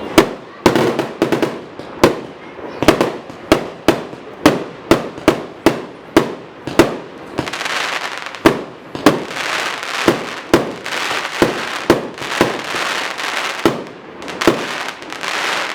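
Fireworks going off: a rapid, irregular string of sharp bangs, several a second. About halfway through, a dense crackling fills the gaps between the bangs.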